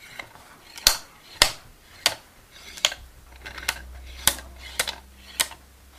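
Wooden abacus beads being slid along their rods and clacking against each other, as on a counting frame being worked by hand: a series of sharp wooden clacks, irregularly spaced, roughly one every half second to a second.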